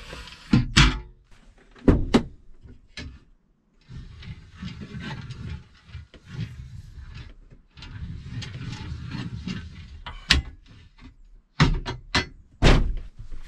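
Metal knocks and clanks as a van-seat swivel base plate is handled and set down onto the seat frame, with scraping and shuffling between them. A few sharp knocks come in the first three seconds and a cluster of louder ones near the end.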